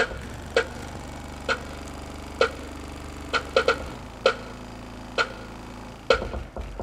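A Realistic Mach 2 15-inch woofer playing a steady deep bass tone in free air, with no enclosure. The tone drops away a little before the middle and returns near the end. A sharp tick sounds about once a second throughout and is the loudest sound.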